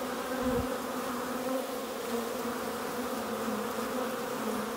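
Many honey bees buzzing as they fly about a hive entrance: a steady hum with a slightly wavering pitch.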